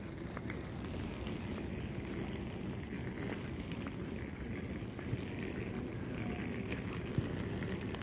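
Steady, fluctuating low rumble of wind on the microphone over faint outdoor background noise, with a few faint clicks.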